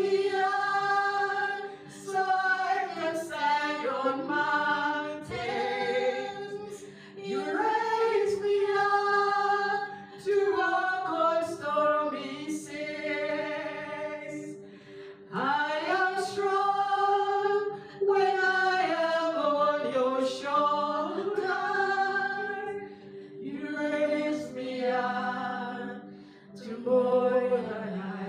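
Slow sung worship song: a voice drawing out long, gliding notes in phrases a few seconds long, over a steady held backing tone.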